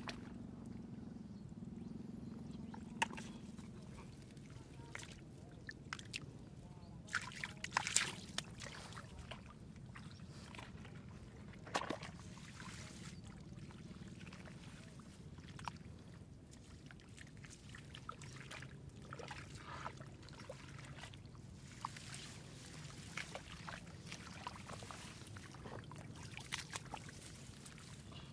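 Shallow water splashing and sloshing now and then, with scattered sharp clicks and knocks over a steady low background.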